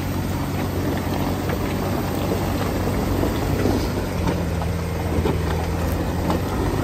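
Jeep Wrangler JK's engine running steadily under load as it climbs a muddy hill with its tires spinning, with a few scattered light clicks.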